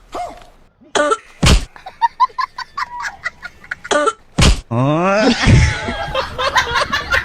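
Exaggerated comic coughing in several separate short bursts, with a rising pitched vocal sound about five seconds in and a run of quick sharp clicks near the end.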